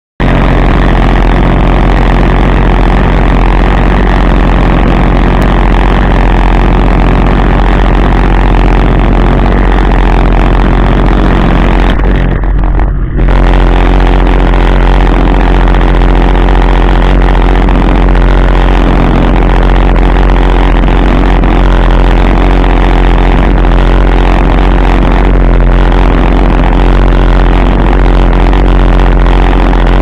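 A 2008 Sea-Doo GTI 155 personal watercraft under way: its Rotax three-cylinder four-stroke engine and jet pump run loud and steady, with water rushing and splashing at the hull. About twelve seconds in, the sound briefly dips and thins for about a second.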